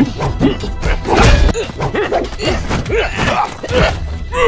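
Background music with fight sound effects over it: several sharp hits and smashes of punches and blows.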